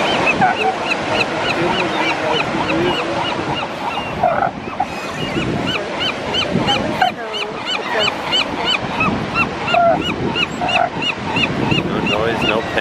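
Northern elephant seal rookery by the surf: honking, squawking calls over the steady wash of waves, with a long run of short high chirps repeating about two or three times a second.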